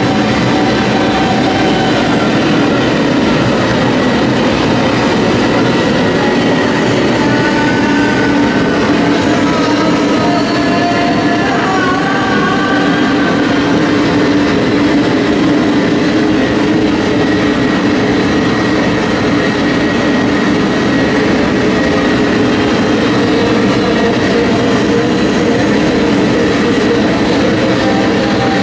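Live power electronics performance: a loud, unbroken wall of distorted industrial noise and drones through the PA, with a few wavering higher tones in the middle.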